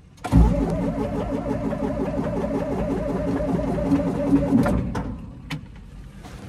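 John Deere 8630 tractor's six-cylinder diesel being cranked by the starter on a cold start without priming, turning over in an even rhythm for about four and a half seconds without catching, then stopping abruptly. A single click follows about a second later.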